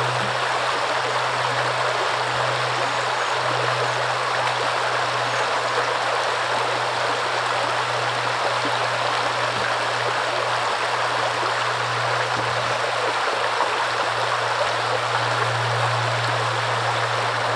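River water flowing steadily, an even rushing of running water, with a steady low hum underneath.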